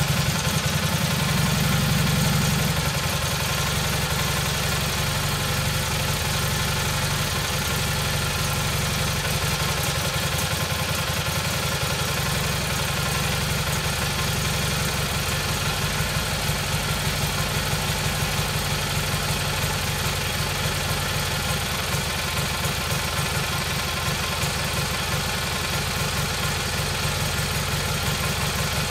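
Kohler Magnum 18 opposed-twin engine running steadily through its muffler on its first run after a complete rebuild, with an even pulse of firing strokes. About two to three seconds in it settles slightly lower and quieter and then holds a steady speed while the carburetor and throttle are being set.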